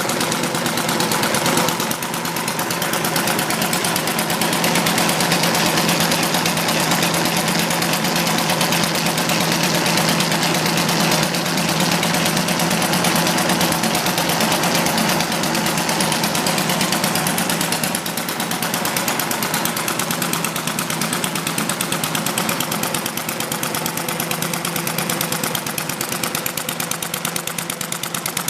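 Model sideshaft horizontal internal-combustion engine running steadily under its centrifugal governor, firing in a fast, even rapid-fire rhythm while it drives a small sawmill through a flat belt, clutch and roller chain.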